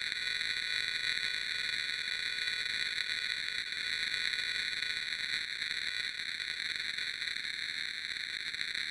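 Creepy electronic static: a steady, unchanging hiss, brightest in the upper range with a few distinct bands, like a detuned TV or radio.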